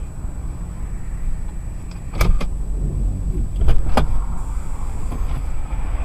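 Low steady rumble of a car sitting in traffic, heard from inside the cabin, with a few sharp clicks and knocks about two and four seconds in.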